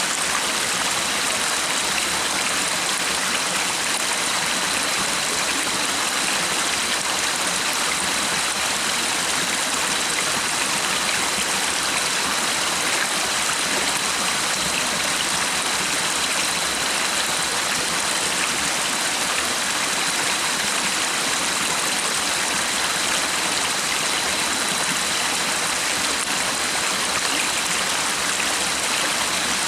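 Stream water flowing steadily, an even rushing with no breaks, over a thin steady high tone.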